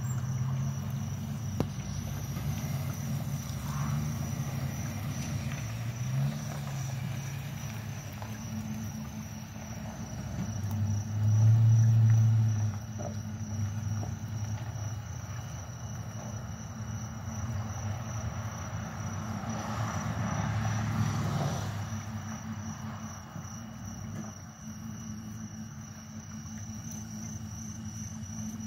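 Emergency vehicles' engines running low and steady, getting louder for a couple of seconds about eleven seconds in and again around twenty seconds in as vehicles drive off. Crickets chirp over it in an even, high pulsing trill.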